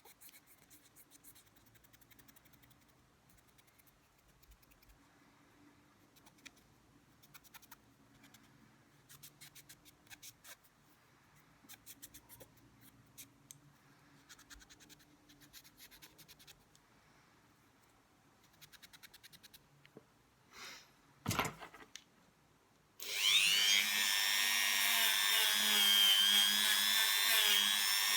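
Faint clicks and rattles of small metal parts being handled, then a small high-speed rotary power tool switches on about 23 seconds in and runs with a steady high whine, its pitch dipping and wavering as it is pressed against the part it is polishing.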